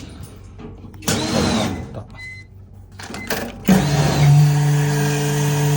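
Commercial chamber vacuum sealer's pump motor starting about two-thirds of the way in and running with a steady hum and hiss, after a short hiss and a brief beep. The unit draws air but fails to reach full vacuum, which the repairer puts down to a possible motor problem or a pump that has not been oiled.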